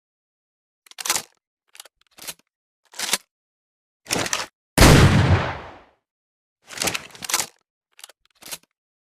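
Double-barrel shotgun sound effect: a single loud blast with a long fading tail about five seconds in, with short sharp metallic clicks and clacks of the gun being handled, several before the shot and more after it.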